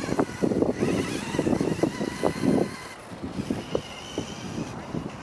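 Kyosho Ultima 2WD electric RC buggy driving, its motor whine rising and falling with the throttle over rough running noise, growing fainter over the first few seconds as it pulls away.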